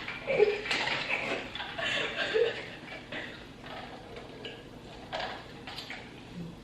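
Low voices and a chuckle, with a few light clicks and clinks of cups and kitchenware. The voices fall away after about three seconds.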